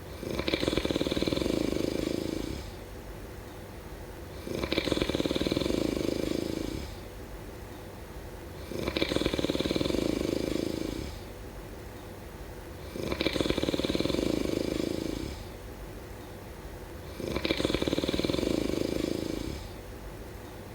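A person snoring in a slow, steady rhythm: five rattling snores of about two seconds each, one roughly every four seconds, with quieter breaths between.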